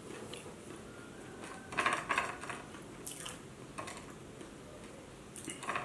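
Close-up eating sounds: chewing a crispy fried potato roll samosa, with short sharp crunchy bursts about two seconds in, at three seconds and near the end.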